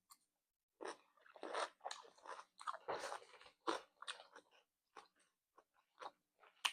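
Faint crunching as someone bites and chews crisp cucumber kimchi, a run of irregular crunches over a few seconds that thins out near the end.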